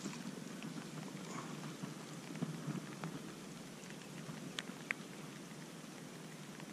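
Steady rain falling, with scattered individual drops tapping close by; two louder taps come about five seconds in.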